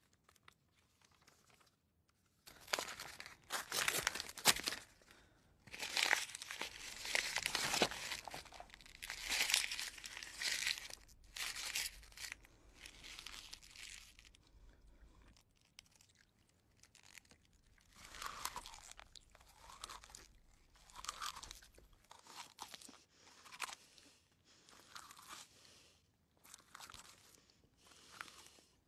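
Paper tearing and crumpling in dense rustling bursts for about twelve seconds, then a man chewing a wad of paper in short, quieter crunching bursts.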